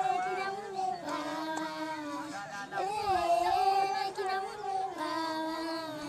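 Young girls singing a song unaccompanied, in held, wavering phrases of a second or two with short breaks between them.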